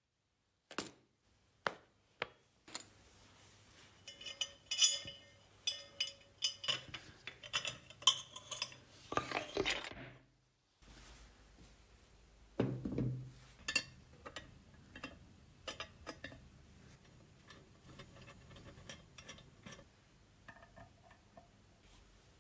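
Small metal parts and tools clinking, tapping and knocking, some strikes ringing briefly, with a scrape near the middle and a duller knock a little after it.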